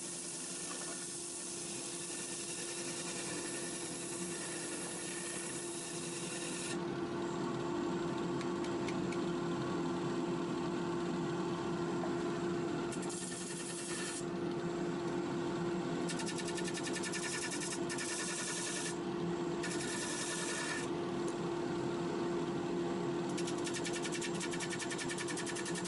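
Bench disc sander running with a steady hum, while a redgum block is pressed against the spinning abrasive disc. The rasping sanding noise comes and goes in several stretches as the wood is pushed on and eased off.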